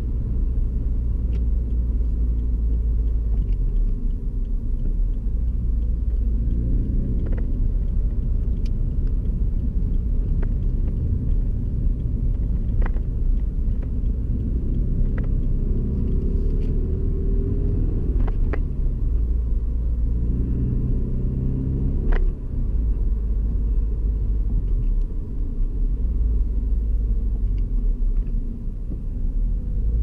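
Toyota 86's flat-four engine and road rumble heard inside the cabin while driving. The engine note rises several times as the car accelerates, with a few sharp clicks.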